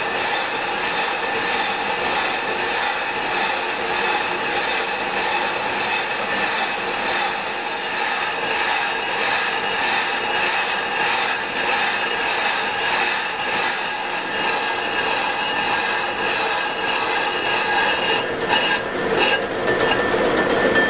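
Accu-Turn 8944 brake lathe turning a brake drum: the cutting bit shears the braking surface as the drum spins, giving a steady howl with many ringing tones. The sound stays constant, the sign that the bit is cutting evenly all the way around the drum. Near the end the howl breaks up a little, with a few clicks.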